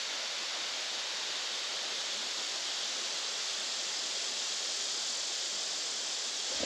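Steady rush of water pouring over a small creek dam.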